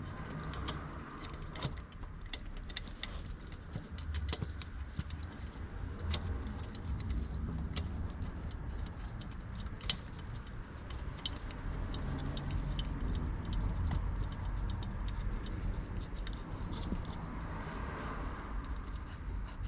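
Scattered small metallic clicks and clinks of a throttle body and its bolts being handled and fitted to the intake, with one sharper click about ten seconds in, over a low steady background rumble.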